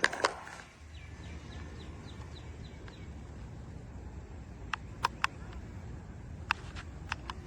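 Low outdoor rumble with a small bird singing a quick run of short descending chirps, followed by several sharp clicks in the second half.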